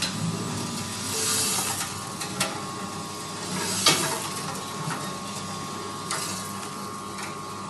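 Coffee roaster's cooling tray running: rotating stirring arms sweep the last roasted beans over the perforated metal tray and out the discharge chute, a rattling, scraping hiss over a steady machine hum. A few sharp clicks stand out, the loudest about four seconds in.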